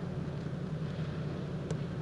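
Steady low rumble of storm wind and lake waves, with one faint sharp click near the end.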